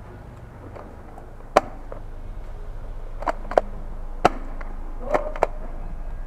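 Airsoft guns firing: about six sharp, separate shots, the first about a second and a half in and the rest coming irregularly over the following two seconds.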